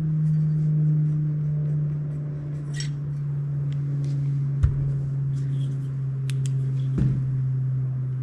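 A steady low hum, with two knocks about halfway through and a couple of seconds later as a cordless drill is set down on a wooden workbench.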